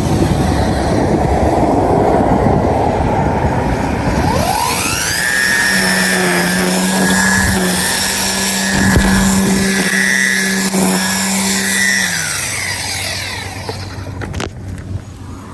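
Small petrol engine of a yard power tool throttled up: its pitch rises sharply about four seconds in, holds at high speed for several seconds, then winds back down and fades near the end.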